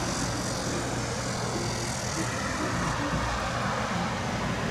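Steady vehicle engine drone, a low hum under an even hiss, with no sharp events.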